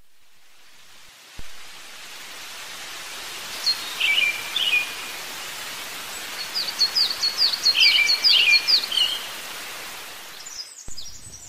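Steady outdoor wind noise, with a bird singing over it: a short burst of chirps about four seconds in and a longer quick run of descending chirps from about six and a half to nine seconds.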